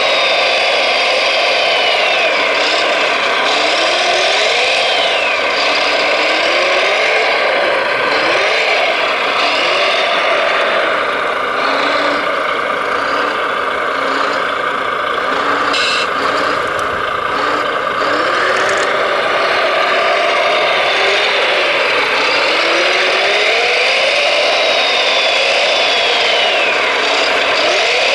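Electric drive motors and hydraulics of radio-controlled construction machine models whining, the pitch rising and falling again and again as they speed up and slow down, over a steady mechanical hum.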